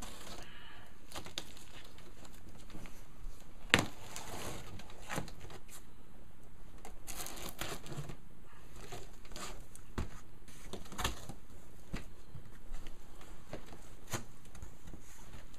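A cardboard box being opened by hand: a knife slitting packing tape and the flaps rustling and folding back, with scattered knocks, the sharpest about four seconds in.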